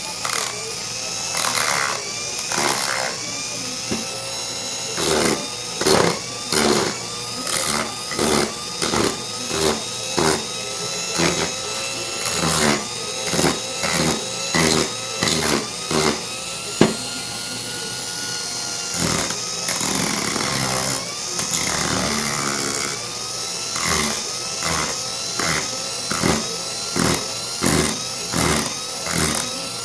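Hand-held power tool grinding rust off a rusty padlock. It is pressed onto the metal in repeated short bursts, a little more than one a second, and the motor's whine dips and recovers in pitch with each. Around the middle there is a steadier stretch of motor whine.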